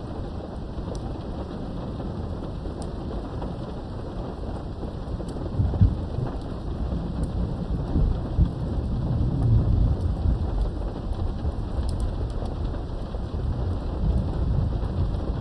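Steady rain heard from behind a window, with a low rumble of thunder that swells about six seconds in, rolls on for several seconds, and swells again near the end.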